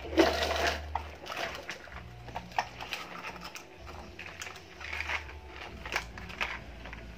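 A plastic toy crane truck being handled, its boom and plastic parts giving scattered clicks, knocks and rattles, loudest in the first second, over a low hum.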